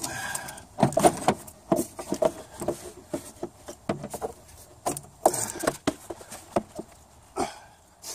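Plastic air-intake duct and airbox being wiggled and pulled free in an engine bay, giving irregular knocks and rattles of hard plastic and rubber. There is a denser clatter about five seconds in.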